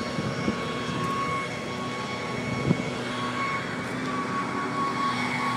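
Steady engine noise of city traffic on a wide street, with a high, steady whine over it and a couple of faint knocks.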